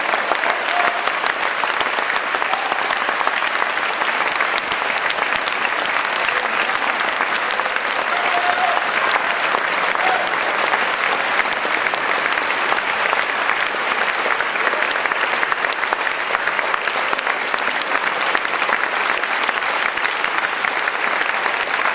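Audience applauding: dense, steady clapping from a large crowd, holding at the same level throughout.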